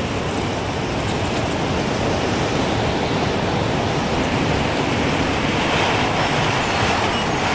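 Gusting wind rushing in a steady, dense hiss that swells slightly after the middle, with no chime ringing heard.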